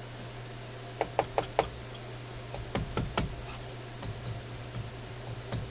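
Sharp clicks and taps of small hard parts being handled at a workbench: four quick clicks about a second in, a few more around three seconds, then fainter taps. A steady low hum runs underneath.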